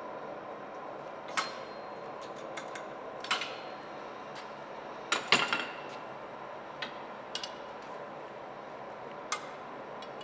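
Scattered metal-on-metal clinks and taps: a small hammer and a steel bar knocking against a steel bending jig and its pins. There are about half a dozen single knocks, some with a brief ring, and the loudest come in a quick cluster about five seconds in, over a steady hum.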